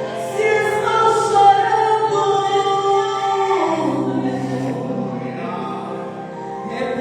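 Voices singing a Christian worship song over steady held chords beneath.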